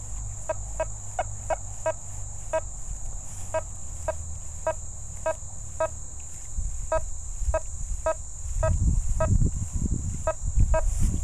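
Nokta Fors CoRe metal detector giving a short mid-pitched beep about three times a second as the coil is swept back and forth over a dime lying under a rusty nail: a steady repeating high-conductor tone coming through with iron masked out. A low rumble of handling or wind noise joins in the last third.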